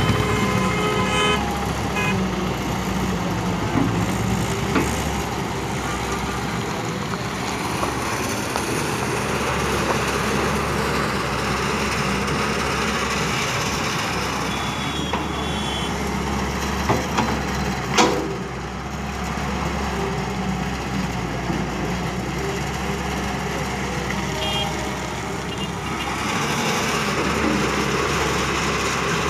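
Tata Hitachi hydraulic crawler excavator's diesel engine running steadily as it digs and heaps soil, with a couple of sharp knocks about two-thirds of the way through.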